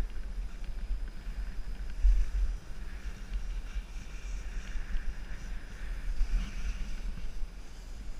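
Wind buffeting a GoPro action camera's microphone during a fast downhill run, a fluctuating low rumble with a stronger gust about two seconds in, over the hiss of sliding on packed snow.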